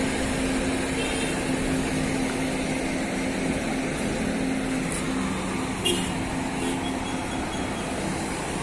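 Coach bus diesel engine running steadily as the bus pulls slowly away, with a brief sharp sound about six seconds in.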